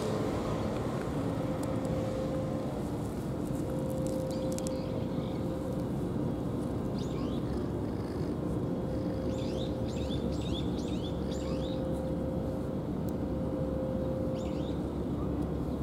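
Small birds chirping in short, quickly falling notes, in a few runs through the middle, over a steady low background rumble with a constant hum.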